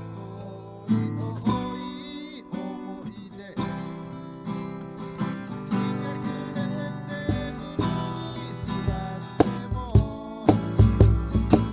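Acoustic guitar playing chords, picked and strummed. About a second before the end it breaks into loud, even strumming, roughly four strokes a second.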